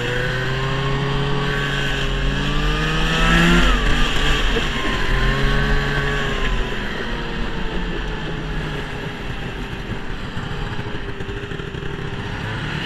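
A 1971 Ski-Doo TNT 640 snowmobile's two-stroke engine running under way. Its pitch climbs for about the first three and a half seconds as it accelerates, then drops back and holds fairly steady.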